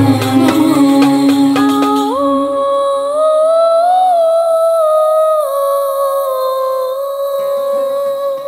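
Andalusian muwashshah arrangement: percussion and bass play for about two seconds, then drop away. A female voice then holds one long, wordless note, rising slightly in the middle and settling again, while faint low notes come in near the end.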